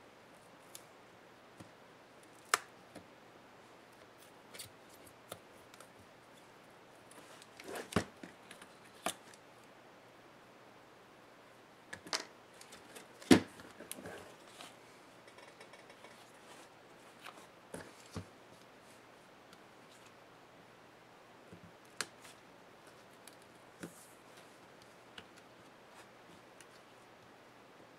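Scattered clicks, taps and scraping of plastic and metal as the Lenovo IdeaPad Flex 14 display is pried apart by hand and with a small blade, and the LCD panel is lifted from its frame. The loudest is a single sharp knock about 13 seconds in.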